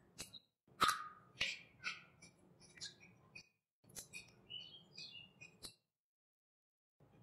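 Close-miked eating sounds: wet mouth smacks and clicks from chewing a mouthful of rice and curry, and the soft squelch of fingers mixing rice with chicken curry. They come as a quick run of short sharp clicks and smacks, and the sound drops out completely for about a second near the end.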